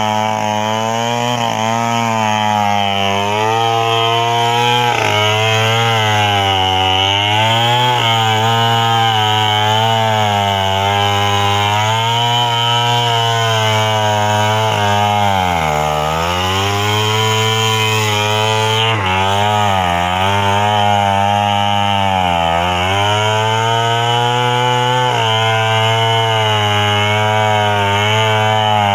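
Petrol chainsaw cutting into the trunk of a standing medang tree, running at high revs the whole time. Its pitch sags again and again as the chain bogs into the wood and then picks back up, dropping lowest about halfway through.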